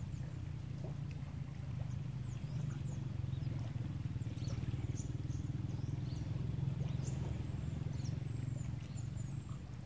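Outdoor ambience: a steady low rumble under many short, high, downward-sliding bird chirps, with a faint steady high tone throughout.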